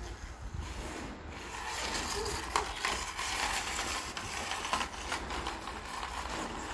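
Plastic toy car rolling over concrete paving blocks as a child pushes it, its wheels rattling with scattered clicks.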